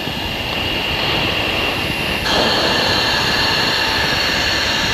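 F-16 cockpit noise in flight: a steady rush of jet engine and airflow with a high whine, which steps up in level about two seconds in.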